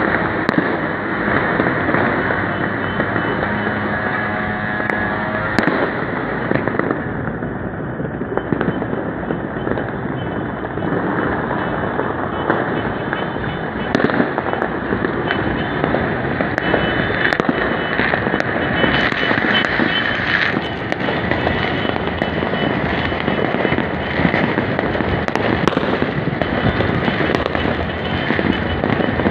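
Many fireworks and firecrackers going off at once: dense, continuous crackling and popping, with sharper, louder bangs of aerial bursts every few seconds.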